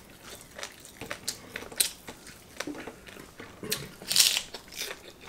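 Close-miked eating: a lettuce-wrapped piece of crispy-skinned roast pork bitten with a loud crunch about four seconds in, amid small wet chewing and mouth clicks.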